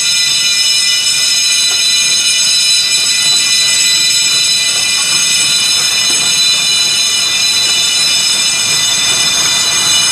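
Steady, loud, high-pitched squeal with many ringing tones from the steel wheels of a small 0-4-0 saddle tank steam locomotive grinding round the sharply curved dock track as it moves slowly.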